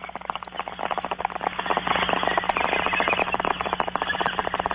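Bong-hit sound effect: water bubbling and gurgling in a bong as smoke is drawn through it, in a dense run of rapid pops over a steady low hum.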